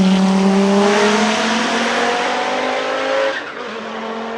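Race car engine held at high revs, its pitch climbing slowly, then falling away sharply about three and a half seconds in.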